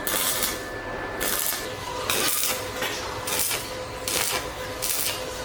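Rhythmic scraping strokes of a hand tool worked back and forth over a surface, about one stroke a second, like filing or sanding.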